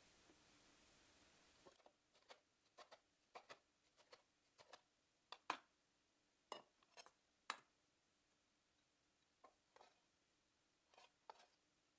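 Faint kitchen clinks and taps, about twenty irregular sharp clicks in clusters, like utensils knocking on dishes, after a short steady hiss at the start.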